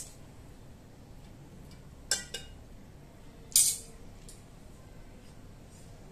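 A few sharp clinks of a steel spoon against metal kitchenware: a pair about two seconds in and the loudest, brightest one about three and a half seconds in.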